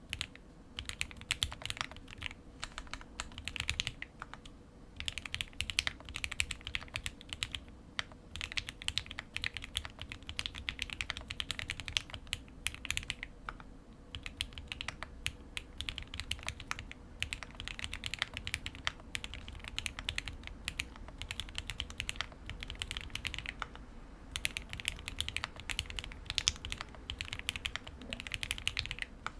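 Typing on an OwLab Spring mechanical keyboard with Krytox-lubed Gateron CJ 65g linear switches on a foamed POM plate: fast runs of crisp keystrokes in bursts of a couple of seconds, with short pauses between.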